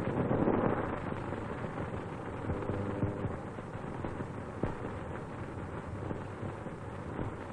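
Rumbling noise and hiss from an old optical film soundtrack, swelling in the first second and then settling. Scattered crackles and pops run through it, and a faint brief tone comes about three seconds in.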